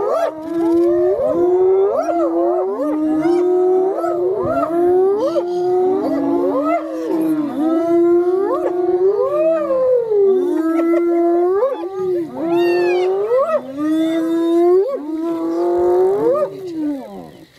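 Several hyenas calling over one another in continuous high, wavering yelps and whoops that keep sliding up and down in pitch.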